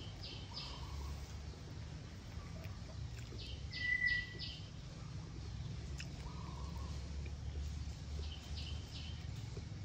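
Small birds chirping in short runs of three or four quick high notes, three times, with a brief clear whistle about four seconds in that is the loudest sound, over a steady low hum.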